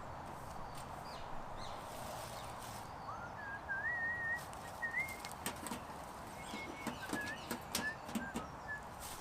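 A small bird singing short warbling phrases, a longer phrase about three seconds in and then several brief notes, over a quiet background hiss. Scattered faint clicks and rustles.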